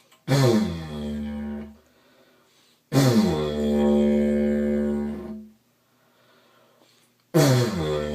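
A didgeridoo played in three separate blows, the longest in the middle. Each starts with a swoop down in pitch and settles into a steady low drone. The player stops to breathe between blows because he cannot circular-breathe, so each blow lasts only as long as one breath.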